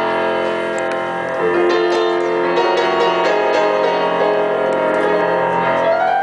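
Live keyboard music: a loud chord held steadily, with new notes entering over it about a second and a half in. The sound drops away right at the end.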